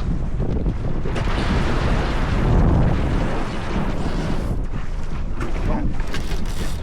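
Wind buffeting the microphone and water rushing along the hull of a sailboat under way, loudest about two to three seconds in, with a few short sharp sounds near the end.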